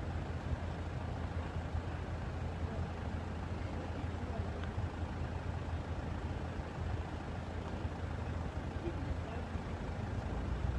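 A vehicle engine running with a steady low rumble, unchanging throughout.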